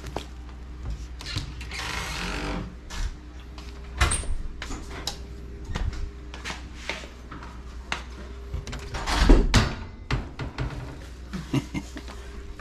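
Handling noise: shrink-wrapped water filter cartridges rustling and knocking as they are carried, with scattered clicks and knocks of a cabinet door being opened, over a steady low hum. A rustle about two seconds in, and a louder rustling scrape about nine seconds in.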